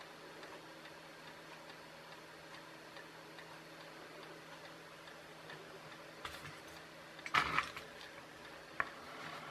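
Small clicks and rattles from a little circuit board and tools being handled on a workbench, a cluster about seven seconds in the loudest, then one more click. A faint steady hum lies under them.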